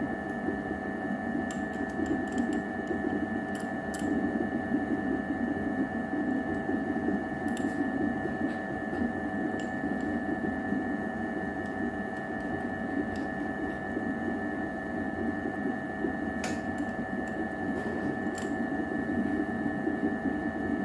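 A steady mechanical hum with a few faint clicks and taps scattered through it.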